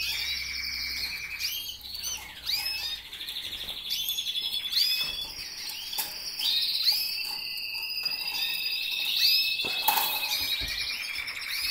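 Canaries singing: rapid rolling trills and chirps from several birds overlapping, with a single short knock near the end.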